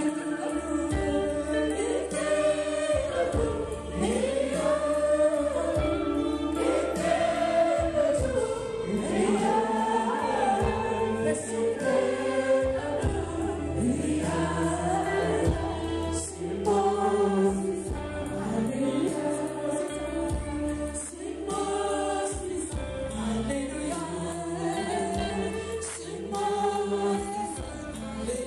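Church congregation and a worship team on microphones singing a gospel worship song together, over held low instrumental notes.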